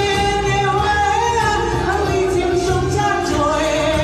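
A woman singing into a handheld microphone over backing music with a steady bass beat, holding long notes that waver with vibrato.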